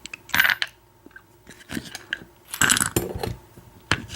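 Small metal parts of an American 1100 padlock clicking and clattering in several short bursts as the lock is taken apart.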